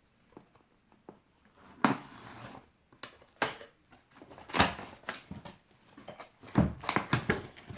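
Packaging and kit parts being handled as they are lifted out of a box: scattered knocks and clatters with short bursts of rustling, the longest about two seconds in.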